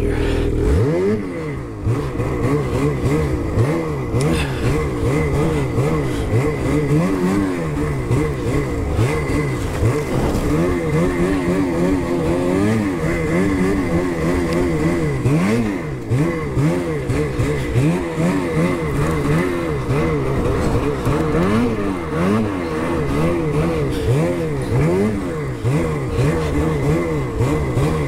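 Two-stroke engine of a Ski-Doo mountain snowmobile under repeated bursts of throttle, its revs rising and falling every second or two.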